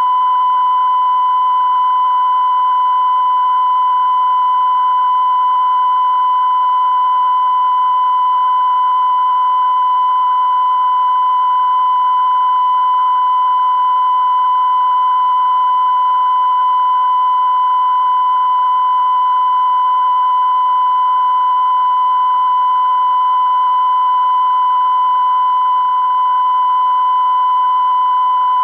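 Television test-card line-up tone: a single steady 1 kHz tone, held unbroken, with a faint hiss beneath it.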